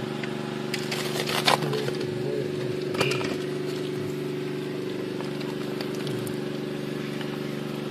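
Clicks, cracks and scrapes of rock fragments and crystals being picked and pushed about by hand, sharpest in a cluster about one and a half seconds in and again about three seconds in, over a steady low machine drone.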